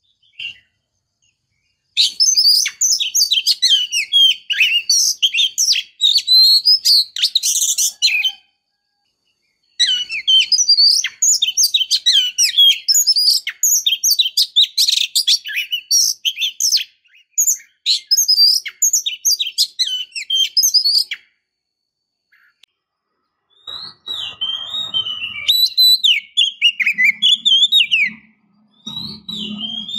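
Oriental magpie-robin singing: a rapid, varied run of high chirps and whistled phrases in three long bursts, separated by silent pauses of a second or two.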